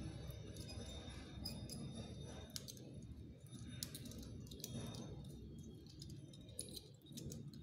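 Faint, scattered clicks and scrapes of a screwdriver prying the cover off a small round fridge-compressor overload protector, its plastic casing and metal parts clicking as it is worked open.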